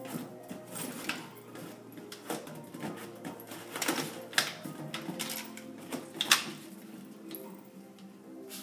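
Small dog's claws clicking and skittering on a tile floor as it chases a balloon, an uneven patter with a few louder knocks, the loudest about four and six seconds in.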